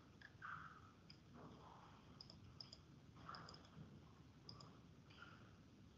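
Faint computer mouse clicks, several scattered through and some in quick pairs, over near-silent room tone.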